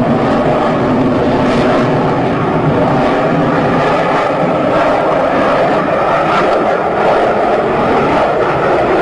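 Loud, steady jet aircraft engine noise, with no sharp boom and no rise or fall in level.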